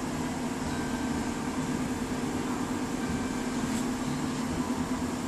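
A steady mechanical hum with a constant low drone and no distinct events.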